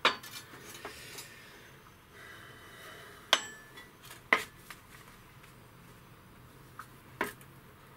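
Metal tools and parts clinking as they are handled on a workbench: a few sharp, separate metallic strikes spread over several seconds.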